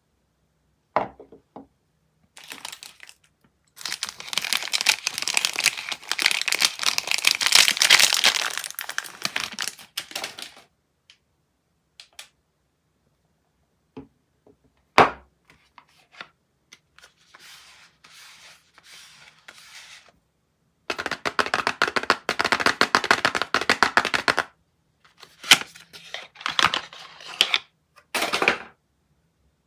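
Soap packaging being torn open and crinkled by hand: two long stretches of dense crackling and rustling, with a few sharp snaps and short rustles between them.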